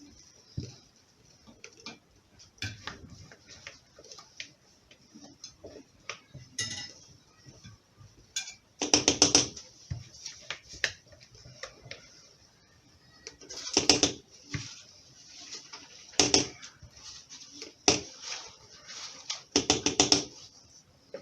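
Kitchen utensils clicking, scraping and knocking against a mixing bowl and cake pan as cake batter is transferred into the pan. There are small scattered clicks, with several louder rattling bursts spread through.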